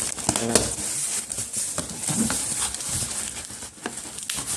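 Packaging being handled and pulled apart while a boxed collectible figure is unpacked: a continuous crinkling rustle with scattered sharp clicks.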